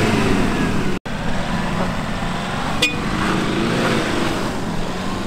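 Toyota Fortuner SUV's engine pulling hard as it climbs a sand dune, its tyres churning and throwing sand. The sound drops out for an instant about a second in.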